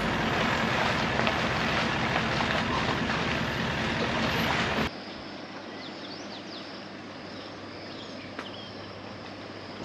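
A 4x4 driving on a wet road: a steady rush of engine and tyre noise. It cuts off sharply about five seconds in, leaving quieter outdoor ambience with a few short bird chirps.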